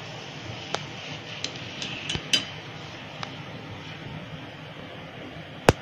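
Hot oil sizzling steadily in a steel kadhai while a wire-mesh skimmer lifts out a fried pumpkin puri, clinking against the pan several times in the first few seconds. One sharp metal clink near the end is the loudest sound.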